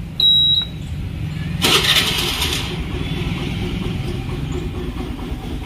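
Honda Activa scooter's single-cylinder four-stroke engine being started with the key: a short high beep just after the key turns, about a second of starter cranking as the engine catches, then the engine idling steadily.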